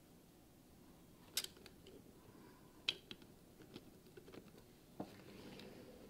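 Small 3D-printed plastic parts being handled, giving a few sharp light clicks and taps, the loudest about a second and a half apart, with softer ticks between them over faint room tone.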